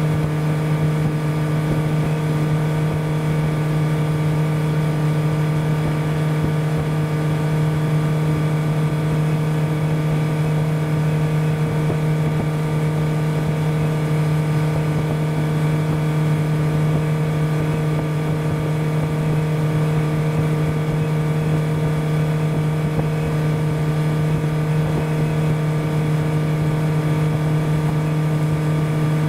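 Motorboat engine running steadily under way: one constant low hum that holds the same pitch throughout.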